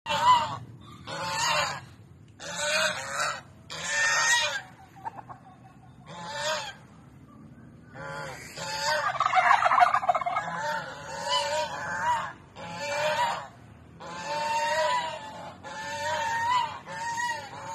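Farmyard poultry calling again and again: a run of short, harsh, pitched calls about once a second, with a longer, denser rattling call about nine seconds in.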